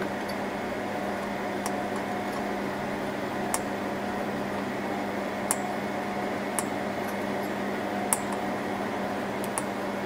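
Steady fan hum with a constant low tone. Over it come about six light, sharp clicks, a second or two apart, from a screwdriver turning the last CPU heatsink screw down on the Lenovo SR650 server.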